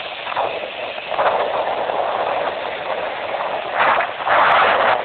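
Speed boat running fast across open water: a steady rush of wind and water spray past the bow, swelling louder about a second in and again near the end.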